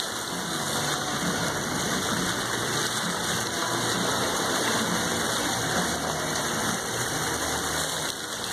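Foam-jet fountain nozzles running, their aerated water columns splashing steadily back into the pool with a constant rushing, spattering noise.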